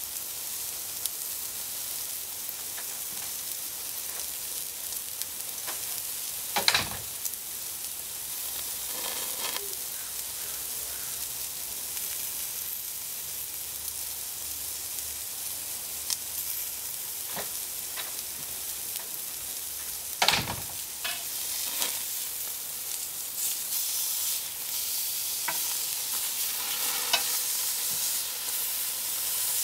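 Steaks sizzling on a hot grill grate, a steady hiss broken by two sharp, loud pops about a quarter and two-thirds of the way through. Near the end come a few light clicks as metal tongs take hold of the steaks.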